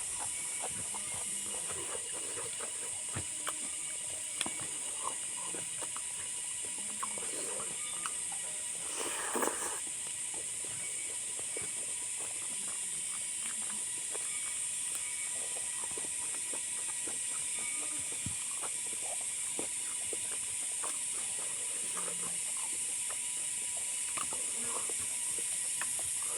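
A person chewing and eating, with small wet mouth clicks and smacks and a slightly louder burst about 9 seconds in, over a steady background hiss.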